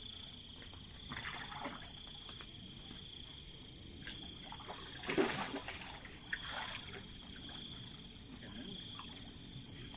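A hooked patin (shark catfish) splashing at the surface by the bank as it is landed, in a few short bursts, the biggest about five seconds in. Crickets chirp steadily behind.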